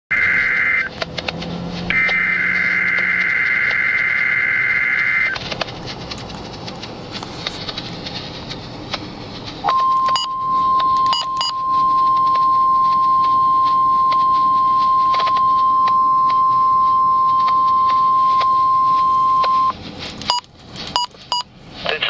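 A Midland HH54VP2 weather radio's speaker receiving a NOAA Weather Radio test. It opens with a harsh buzzing screech of digital alert-header data in two stretches, then hiss, then a steady single-pitch warning alarm tone held for about ten seconds. A few short clicks follow near the end.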